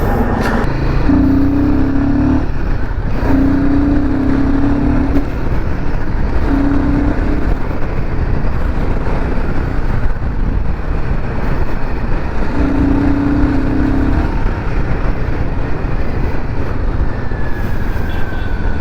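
Royal Enfield Himalayan 450's single-cylinder engine running under way, mixed with wind rushing over the helmet camera. A steady humming tone comes and goes about four times.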